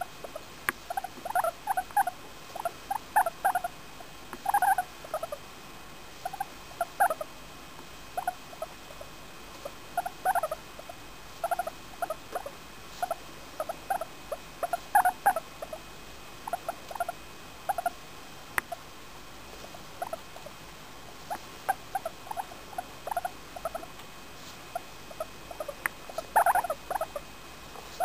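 English Crested guinea pig making short, soft squeaking calls in quick little runs with brief pauses between, repeated over and over while being petted: contented, happy noises. The loudest run comes near the end.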